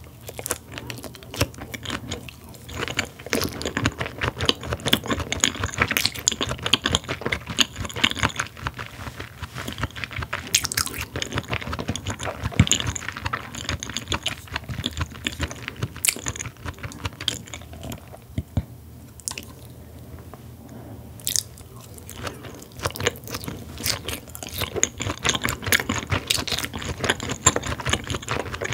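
Close-miked chewing of raw Korean beef (yukhoe and diced raw rib meat), a dense run of irregular sharp mouth clicks that eases off briefly about two-thirds of the way through.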